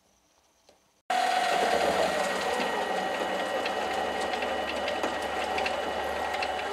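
Near silence for about a second, then a mini lathe cuts in abruptly, running with a steady motor and gear whine and scattered light ticks as the tool faces off the end of a 10 mm round bar. The whine sags in pitch near the end.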